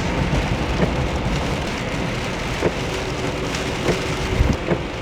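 Heavy rain hitting a car's roof and windshield, heard from inside the moving car: a steady wash of rain with scattered sharp drop taps over a low road rumble.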